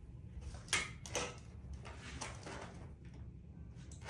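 A few faint, short knocks and clicks, the sharpest about a second in, over low room noise.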